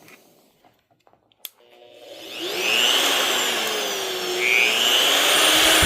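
Bauer 3-inch corded electric cut-off tool, fitted with a 4-inch disc, switched on with a click about a second and a half in and spinning up free with no load. Its high whine rises, sags and rises again as the speed varies.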